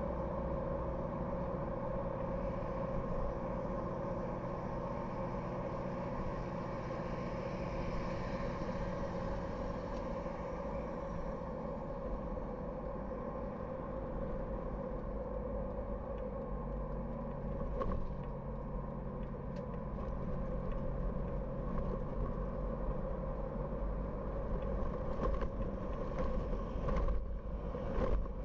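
Car driving on the road: steady engine and road noise with a constant hum, and a few short knocks over bumps near the end.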